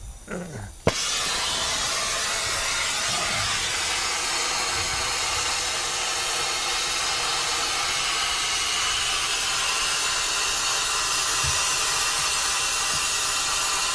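Brazing torch lighting with a sharp pop about a second in, then a steady hissing flame as it heats a copper refrigerant line joint to get the braze to flow.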